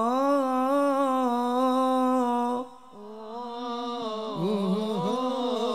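Male voice singing Islamic sholawat unaccompanied through a PA, holding one long, slightly wavering note. It breaks off about two and a half seconds in, then softer singing with winding, ornamented pitch takes over.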